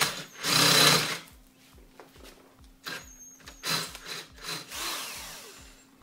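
Handheld electric drill with an 8.4 mm bit boring through the wall of a shock absorber strut body, widening the pilot hole. It runs in bursts, the loudest about half a second in, then shorter runs around the four-second mark, winding down near the end.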